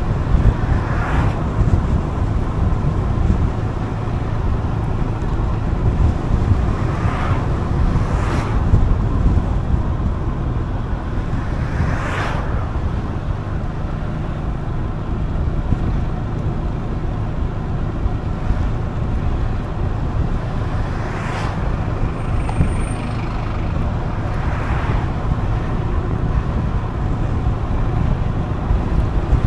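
Gilera Fuoco three-wheeled scooter riding along, its engine running steadily under road and wind noise, with a few brief louder rushes of air.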